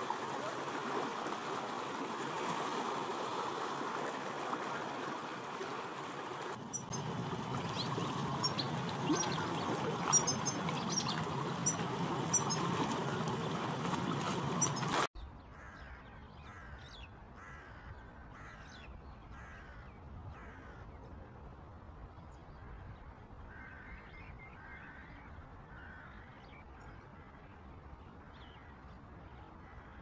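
A steady rushing noise with faint high chirps, which cuts off abruptly about halfway through. After it, short bird calls repeat one or two a second at a lower level.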